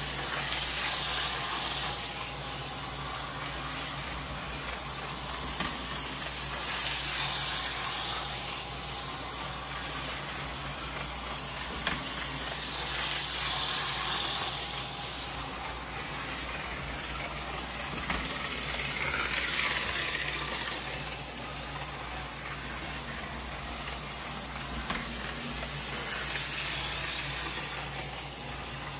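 Life-Like model Santa Fe diesel locomotive running laps around a small oval of track: a steady hiss of its motor and wheels swells about every six seconds as it comes round past the microphone, each pass opening with a short click.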